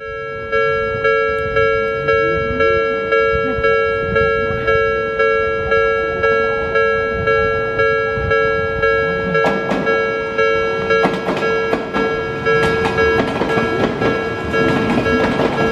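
Japanese railway level-crossing alarm bell ringing steadily, about three strokes every two seconds, each stroke a chord of several tones that fades away. From a little past halfway a passing train adds wheel clatter and clicks over the rail joints.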